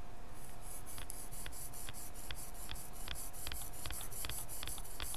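Small single-bevel bonsai knife (kogatana) being sharpened on a wet whetstone: quick back-and-forth strokes of steel scraping across the stone, about five a second, starting about half a second in. Only the one bevel is ground, to bring back the edge of a blade that has chipped.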